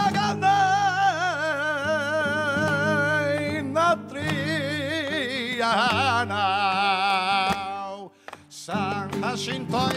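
Flamenco cante for a soleá: a singer holding long, wavering melismatic lines without clear words, over steady low guitar notes, with a brief break in the voice near the end.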